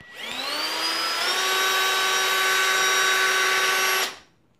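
Ridgid drill spinning a chimney-sweep brush head of plastic whips on a flexible rod. The motor whine rises in pitch over about the first second as it spins up, holds steady, then cuts off about four seconds in.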